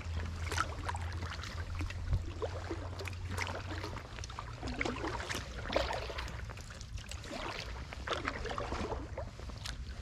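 Paddle strokes in floodwater from a small paddled boat: irregular splashing and dipping about once a second, over a low steady rumble.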